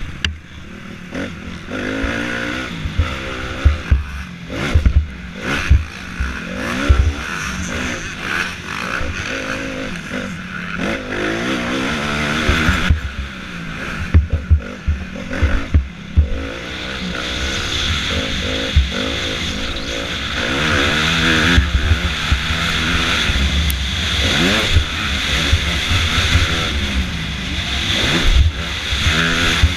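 Motocross bike's engine revving hard and dropping back over and over as the rider accelerates and shifts around the track, with wind noise on the onboard microphone and frequent low knocks from the bike and suspension taking bumps.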